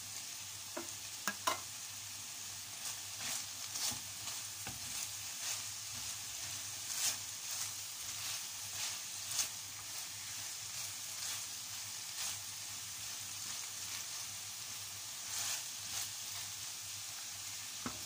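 Chicken and vegetables sizzling in a hot frying pan while a wooden spatula stirs and tosses them, with short scraping clicks against the pan scattered throughout.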